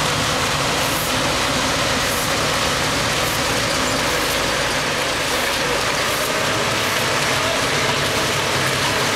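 A diesel engine running steadily at a low, even speed, with a constant hiss over it.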